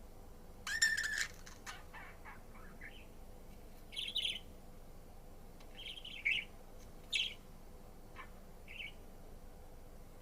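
Budgerigar calling in short, scattered chirps and squawks. The loudest, a harsh call about a second in, runs straight into a quick string of short notes; after that come single chirps every second or two.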